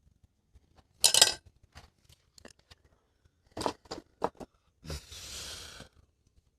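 Irregular clicks and clinks of small hard objects being handled, with a loud crackly rustle or scrape about a second in, and a thud followed by a second-long scraping hiss near the end.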